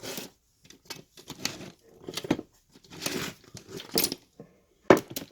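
A board cut to fit being set into a work cart and shifted into place: irregular scraping and rustling, with a couple of sharp knocks near the end.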